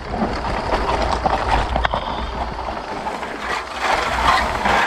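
Off-road handcycle rolling down a rutted dirt trail: knobby tyres crunching over dirt and stones, with the frame and suspension clicking and rattling over the bumps, a steady low rumble underneath and a sharper tick about two seconds in.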